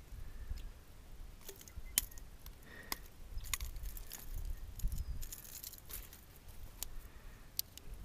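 Handling noise from a just-landed bass and a topwater lure being unhooked: scattered light metallic clicks and jingles over an uneven low rumble.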